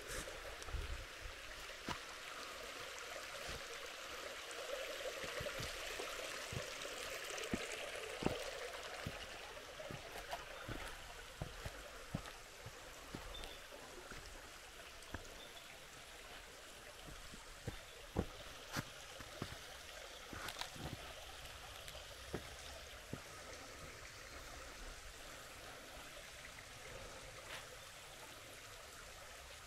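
A creek flowing, louder for the first nine seconds or so and then fading to a softer rush. Scattered sharp clicks come through it.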